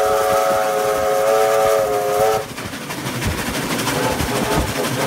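Steam locomotive whistle blowing one long chord of several tones. The chord dips slightly in pitch and cuts off about two and a half seconds in, leaving the rumble and clatter of the moving train.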